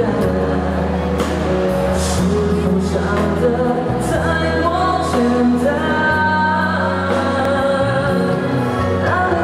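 A man singing a lyrical Mandarin pop ballad live into a microphone over a backing track, amplified through public-address loudspeakers.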